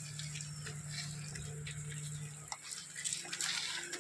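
Small electric motor of a toy tractor humming steadily, its pitch stepping up a little past halfway, with light crackling from the wheels on wet gravel.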